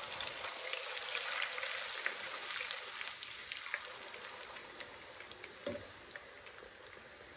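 Puri frying in shallow hot oil in a frying pan: a sizzle of fine crackles that slowly dies down, with one soft knock about five and a half seconds in.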